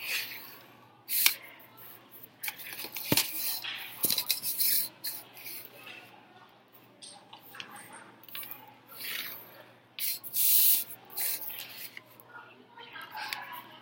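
Pencil scratching across paper in a series of short strokes as straight lines are drawn along a plastic ruler, with two sharp clicks about three and four seconds in.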